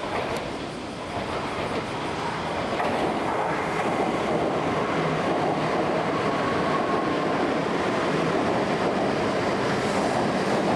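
A Shinkansen train running on the line, its rushing noise building over the first few seconds and then holding steady, with a faint thin whine in the middle.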